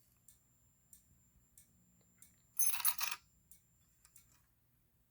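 Fire alarm pull station being pulled: one short metallic clack and rattle about two and a half seconds in, with a few faint clicks before and after it.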